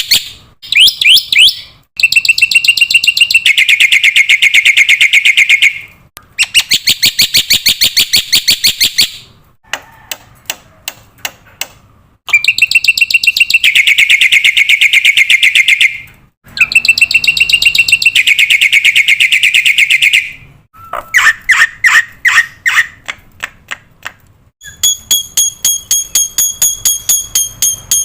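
Black-winged myna (Javan white starling) calling loudly in bouts of fast, evenly repeated harsh notes, each bout a few seconds long with short pauses between. Near the end comes a run of clearer, shrill whistled notes.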